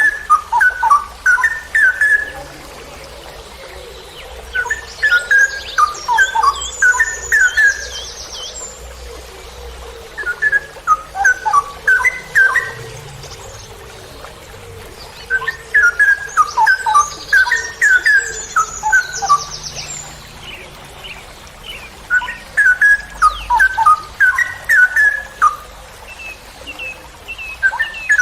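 Straw-headed bulbul (cucak rowo) singing: loud phrases of rich, quick whistled notes, each two to four seconds long, repeated about every five or six seconds. Fainter high twittering sounds under some of the phrases.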